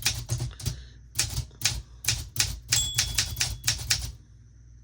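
Olympia SM9 manual typewriter being typed on: a quick run of sharp typebar strikes, about four a second, that stops about four seconds in.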